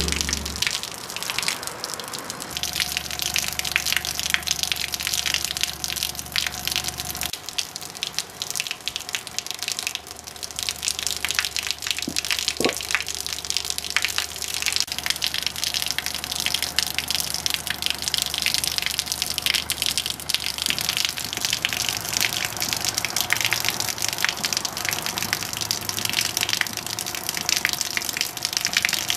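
A stream of water from a hose splashing steadily down onto the ground, a continuous hiss, with a low hum from the subwoofer whose vibration shakes the hose.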